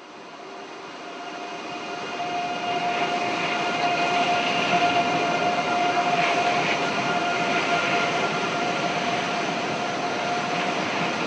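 Steady running noise of a vehicle, with a steady whine over it, fading in over the first couple of seconds and then holding level.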